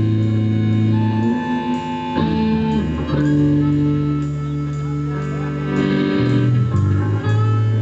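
Blues band playing an instrumental passage: guitar notes over a bass line.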